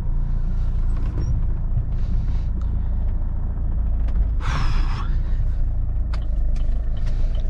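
Steady low rumble of a Chevrolet Cruze being driven, heard from inside the car, with a short hiss about halfway through.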